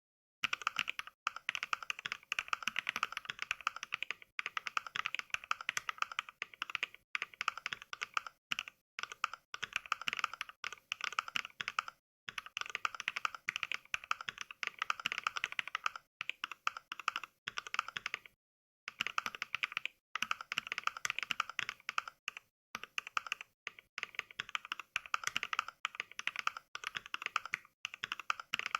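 Fast touch-typing on a mechanical keyboard as simulated by the Mechvibes NK Cream sound pack: sampled clicks of NovelKeys Cream switches, one per keystroke, in dense runs. The runs are broken by a few short pauses of dead silence, and the typing starts about half a second in.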